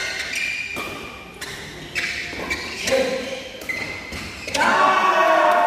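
Badminton rally: sharp racket strikes on a shuttlecock about every half second to second, with short squeaks of shoes on the court. About four and a half seconds in, spectators break into cheering and clapping as a point is won.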